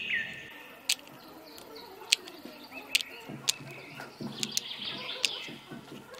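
Small birds chirping with short falling whistles, and a few sharp clicks as miniature clay bricks are set down in a toy trailer's metal-lined bed.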